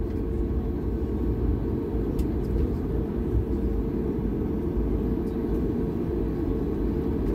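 Steady low rumble inside the cabin of a Ryanair Boeing 737 taxiing after landing, heard from a seat over the wing.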